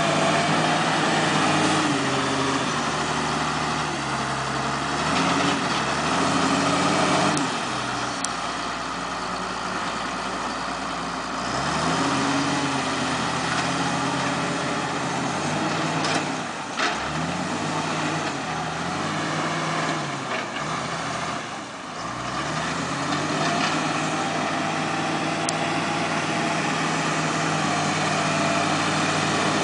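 Heavy engine of log-unloading machinery running, its pitch rising and falling repeatedly as it works under load, with a few short knocks.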